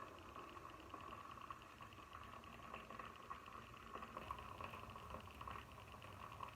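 Food simmering in a pan on the stove: a faint, steady hiss with fine rapid crackles.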